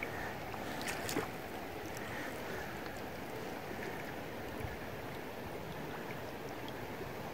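Steady rush and lapping of river water around a small drifting boat, with a couple of light knocks about a second in.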